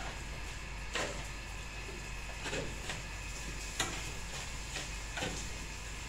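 Steel shovel scraping and scooping through loose grey sand-and-cement mix on a hard floor: about five uneven strokes of scrape and knock.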